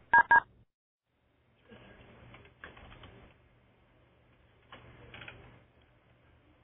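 Two short telephone keypad (DTMF) tone beeps on the conference line right at the start. After them come two patches of faint rustling or tapping noise over a low hum.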